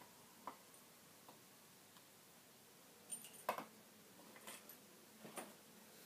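Near silence in a small room, broken by a few faint clicks and knocks, the loudest a short cluster about halfway through.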